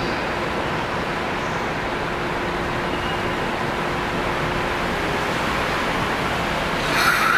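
Commuter train running along the station platform: a steady rushing rumble with a faint hum. It gets louder, with a sudden jump in noise near the end.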